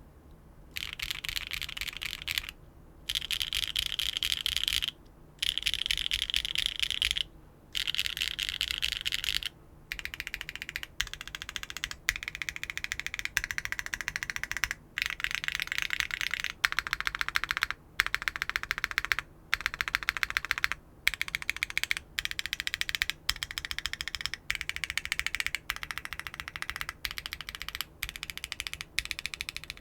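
Fast typing on a mechanical keyboard fitted with HMX Cosmic Purple linear switches (POM housings, LY stems) in an aluminium plate with no foam, under GMK keycaps: a high-pitched clack. It starts about a second in and comes at first in runs of about two seconds with short pauses, then in shorter runs of about a second.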